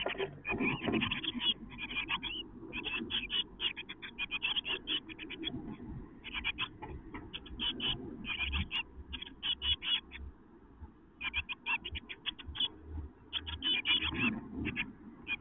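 Blue tit nestlings close to fledging, calling in rapid bursts of short, high begging cheeps, with a short lull about two-thirds through. Under the calls, low rustling and scuffling as the chicks shift about in the moss-lined nest box.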